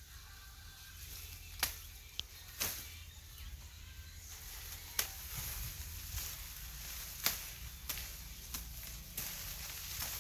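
Corn being picked by hand: crisp snaps and swishes of ears breaking off dry stalks and husks rustling, coming irregularly every second or so over a low steady rumble.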